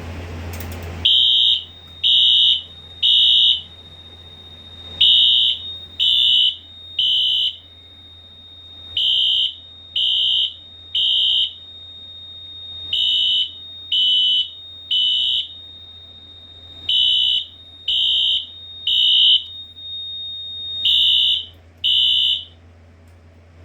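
A single-action pull station is pulled with a brief clatter, then two synced Wheelock horn strobes (an NS-24MCW and an AS-24MCW) sound the temporal code-3 evacuation pattern on low volume: groups of three short high blasts, about one a second, with a pause between groups. Near the end the horns cut off partway through a group, silenced from the panel while the strobes keep flashing.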